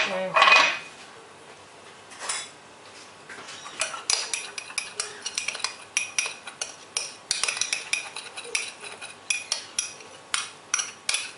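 A small metal spoon stirring coloured cake batter in a small glass bowl: a louder clatter at the very start, then from about three seconds in a quick, uneven run of spoon-on-glass clinks.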